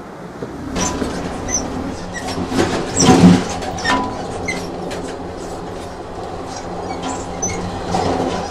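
Train sound effect: a train running on rails with a steady hum and a run of wheel clicks over the rail joints, swelling to its loudest about three seconds in.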